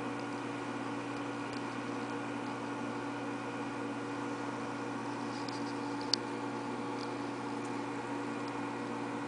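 Steady electric hum with a few fixed tones under a hiss, as from reef-aquarium pumps and equipment. A single sharp click about six seconds in, with a few fainter ticks around it.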